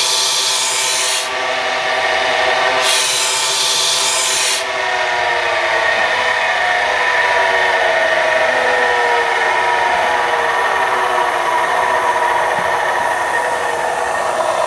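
Cobra CB350MA abrasive cut-off chop saw: the spinning abrasive wheel grinds into stock twice with a harsh hiss, then runs free with a whine that falls slowly in pitch as the wheel and motor coast down.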